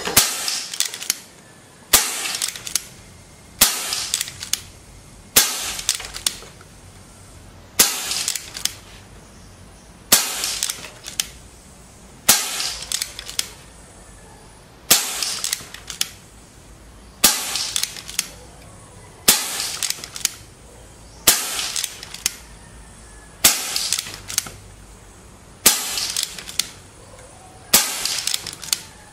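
An FX Maverick Sniper .22 PCP air rifle, fired without a moderator, shooting a rapid string of shots, about one every two seconds. Each sharp crack trails off into a brief run of clicks.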